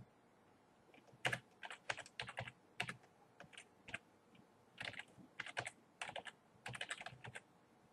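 Typing on a computer keyboard: faint, irregular keystrokes in short runs with brief pauses between them.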